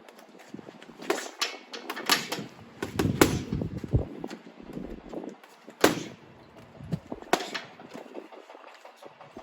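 Boxing gloves striking a punching bag: dull thuds at irregular intervals, some in quick pairs and short flurries, with one hard single hit a little before the middle.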